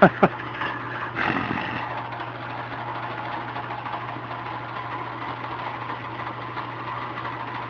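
Drill press motor running with a Forstner bit turning in a spalted maple workpiece: a steady hum with even cutting noise, a louder scrape about a second in.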